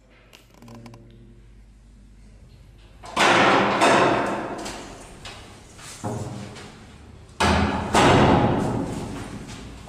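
A series of five loud booming hits, each dying away over a second or two, after a faint low tone at the start.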